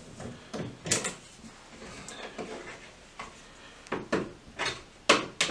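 Screwdriver backing out the screws of a light-switch wall plate: scattered small clicks and scrapes, with a few sharper knocks in the last second and a half.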